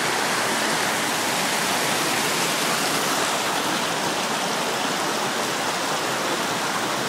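River water running, a steady, even rush with no breaks.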